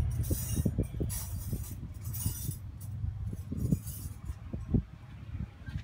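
Scattered light clinks and knocks, like small metal parts or tools being handled, with a few brief rustling hisses in the first couple of seconds; a steady low vehicle hum dies away within about the first second.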